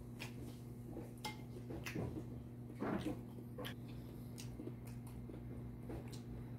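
Close-up eating sounds: chewing with scattered wet mouth clicks and smacks, and chopsticks clicking against the bowl, the loudest burst about three seconds in. A steady low hum runs underneath.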